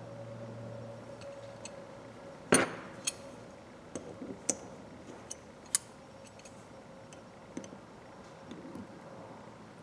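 Small metal hand-tool parts clinking and tapping as a 1/4" ratchet is worked on. There is one sharp knock about two and a half seconds in, then scattered light clicks.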